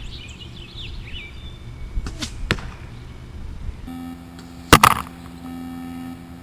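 Compound bow shooting an arrow fletched with Flex Fletch SK-300 vanes: a sharp snap of the release about two and a half seconds in, then a louder, sharp double smack near five seconds in as the arrow strikes. Birds chirp faintly at the start.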